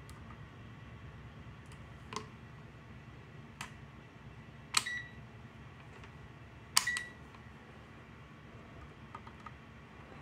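A few sharp clicks from metal multimeter probe tips being placed on a bench power supply's screw terminals, the two loudest followed by a short high tone, over a steady low hum.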